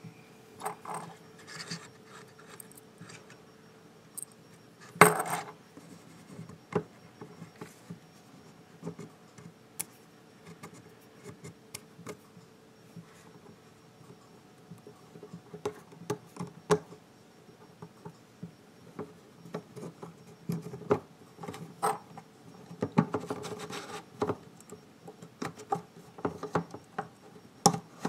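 Handling noise from a metal KA-300 linear scale being moved about on a wooden tabletop: scattered clicks, scrapes and light metallic knocks. One sharper knock comes about five seconds in, and a busier patch of scraping and clicking comes near the end.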